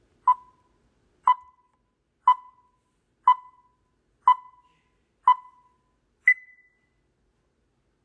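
Film-leader countdown beeps: six short beeps at one pitch, one a second, each fading quickly, then a seventh, higher beep about six seconds in.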